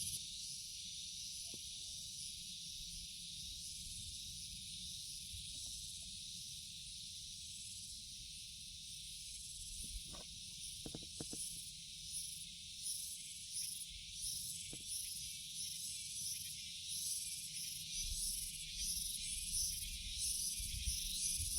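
Steady high-pitched chorus of insects, pulsing in a rhythm that becomes more marked about halfway through, over a low rumble, with a few faint ticks about ten seconds in.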